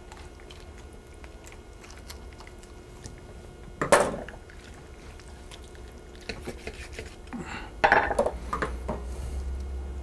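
Poultry shears and a knife handled on a wooden cutting board while a raw duck is cut up through the bones: scattered small clicks and snips, with a sharp knock about four seconds in and a louder cluster of knocks around eight seconds.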